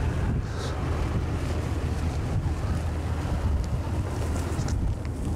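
Wind buffeting the microphone outdoors, a steady low rumble with rushing noise above it.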